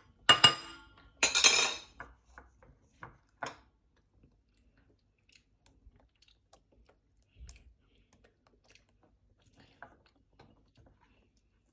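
Kitchen utensils and dishes clinking and clattering twice in the first two seconds; the second clatter lasts about half a second. A few small clicks follow, then only faint scattered ticks.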